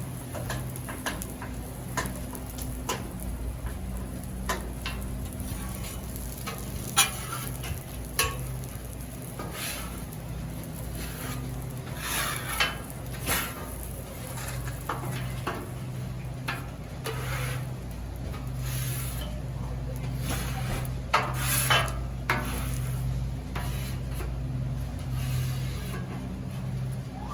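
Metal spatula or scraper scraping and tapping on a Blackstone steel griddle top, over a steady sizzle, with irregular scrapes and clicks.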